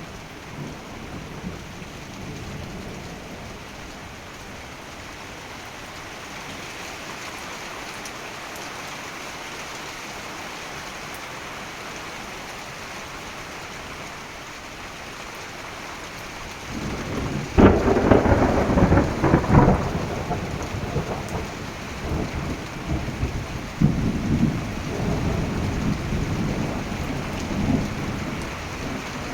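Heavy rain pouring steadily. About seventeen seconds in, a loud clap of thunder breaks out and rumbles on, crackling, to the end.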